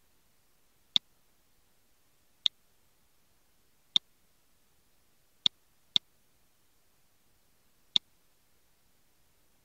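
Six sharp, single mouse-button clicks, spaced irregularly, with two close together about six seconds in.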